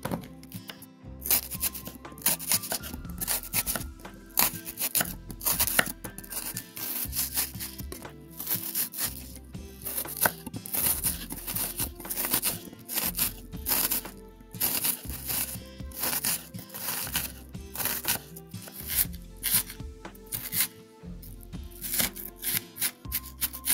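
Kitchen knife dicing an onion on a bamboo cutting board: many quick, crisp cuts in irregular runs, over background music.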